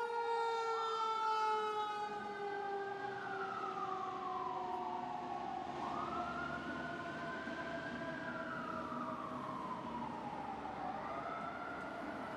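Fire truck sirens on an emergency response. One siren wails in a slow rise and fall, peaking about every five seconds. Under it, a second, steadier siren tone slowly falls in pitch during the first half.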